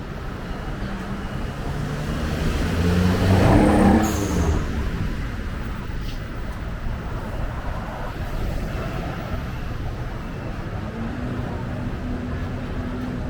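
City street traffic, with a motor vehicle passing close: its engine swells to a peak about three and a half seconds in and fades away, and a fainter engine hum follows near the end.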